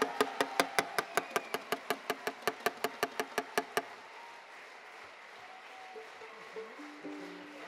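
Applause after a band's piece: sharp hand claps close to the microphone, about five a second, stopping about four seconds in, then fainter clapping from the audience.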